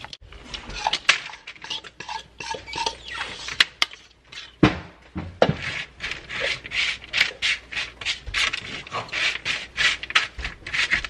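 Metal fork scraping and clinking in a bowl, stirring Chex cereal coated in melted white chocolate. It then scrapes the coated cereal across parchment paper on a baking sheet in quick, repeated strokes.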